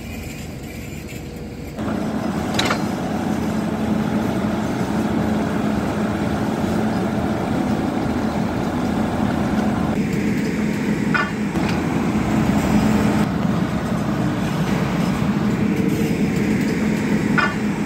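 Horizontal directional drilling rig's engine and hydraulics running steadily, growing louder about two seconds in, while a drill pipe is uncoupled from the string. A few short, sharp metallic knocks come through it.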